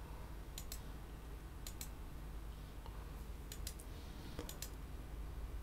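Computer mouse clicking four times, each click a quick double tick of press and release, over faint room hum.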